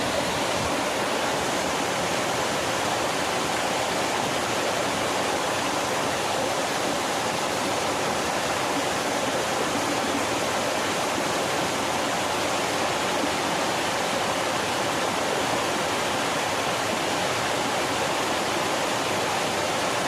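Small waterfall splashing into a pool, a steady rushing of falling water with no pauses or changes.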